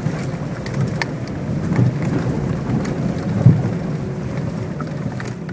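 Renault Megane II driving over rough, uneven road: a steady low road rumble with scattered short knocks, the loudest about three and a half seconds in. The knocks come from around the front subframe over bumps, although the suspension and steering are all new.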